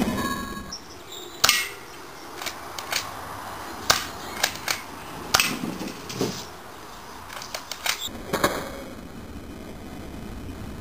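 Sharp snaps from a spring-powered airsoft shotgun firing BBs at a can: three loud ones about a second and a half, four and five and a half seconds in, with fainter ticks between.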